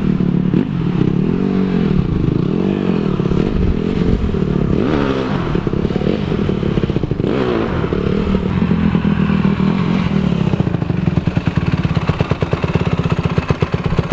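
Dirt bike engine revving up and down several times as it is ridden on wet grass. After about ten seconds it settles to a lower, even, fast putter.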